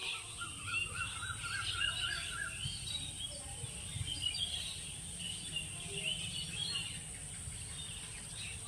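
Several birds chirping and twittering at once, with a lower call warbling rapidly up and down for the first two and a half seconds. A steady high-pitched whine and a low rumble run underneath.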